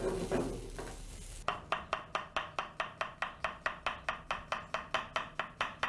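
Kitchen knife chopping green melon on a wooden cutting board: quick, even strokes at about five a second, starting about a second and a half in.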